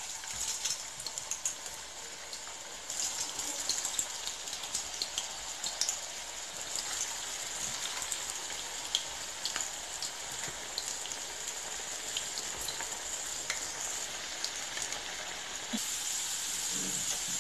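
Potato slices frying in very hot vegetable oil in a stainless steel pan: a steady sizzle dotted with small crackles, growing louder about three seconds in as more slices go in.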